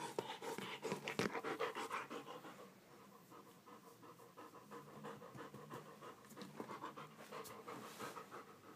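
A black-and-tan shepherd dog panting rapidly close up, loudest in the first couple of seconds and then softer.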